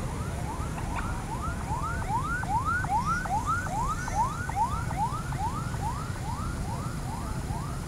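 Emergency-vehicle siren on a passing convoy of ambulances and a police car, a quick repeating whoop of rising sweeps about two to three a second, loudest around the middle, over the low rumble of the vehicles passing.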